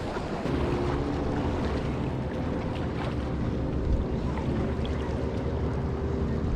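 Steady drone of a motorboat engine running on the water, with wind rumbling on the microphone.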